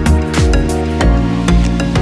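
Background music: sustained electronic chords over a steady kick-drum beat.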